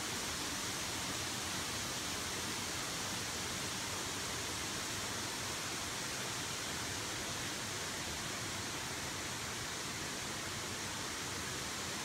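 Steady rushing of a river running through the gorge below, an even hiss with no breaks.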